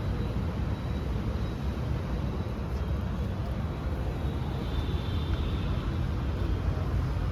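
Steady street din with traffic noise, heaviest in the low rumble and even throughout, with no single event standing out.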